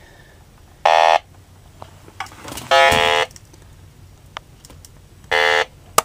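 Electronic refrigerant leak detector giving three short buzzing alarm tones, each about half a second long and roughly two seconds apart, as its probe is swept around a brazed joint on a refrigerator's copper tubing.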